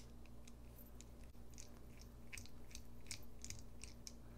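Faint, irregular clicks and ticks of a Torx bit driver turning a small pocket-clip screw out of a folding knife's handle.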